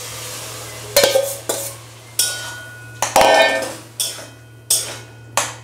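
A steel bowl of thick boiled dal is emptied into an aluminium kadai, knocked and scraped against the pan in several sharp metallic clanks that ring on briefly. A soft sizzle from the hot pan comes first.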